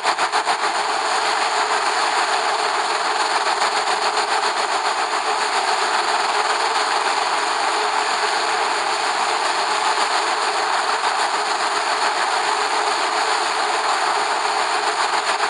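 Steady rushing noise with a fast flutter on the falcon nest camera's microphone, unchanging throughout, with no bird calls.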